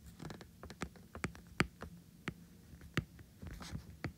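Stylus tip tapping and clicking on a tablet's glass screen during handwriting: a string of irregular sharp ticks. A faint steady low hum runs beneath.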